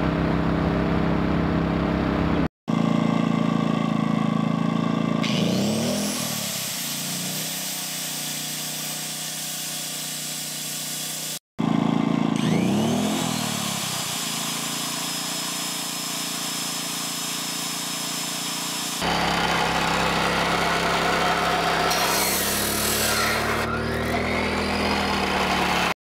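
Toro GW2500i inverter generator running in short takes split by abrupt cuts, its engine hum shifting in pitch as electric fans are switched on and load it. A high whine rises and then holds twice, about five and twelve seconds in, as the fans spin up.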